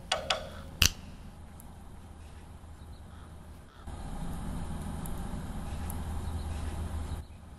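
Outdoor background ambience: a few sharp ticks in the first second, then a steady low rumble that grows louder about four seconds in and drops back near the end.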